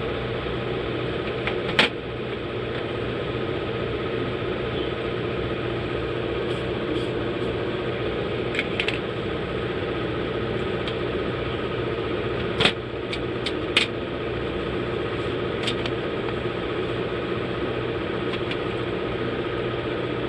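Steady hum of a small motor running, with a few sharp clicks and taps scattered through it.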